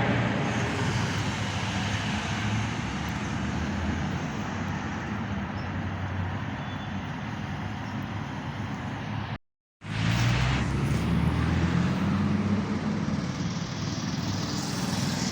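Steady road-traffic noise: a continuous low rumble of vehicles. It cuts out completely for about half a second a little past nine seconds in, then carries on as before.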